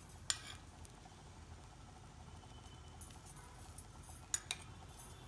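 Faint sizzling of set dosa batter cooking in oil on a hot cast-iron dosa pan, with a few small clinks just after the start and about four seconds in.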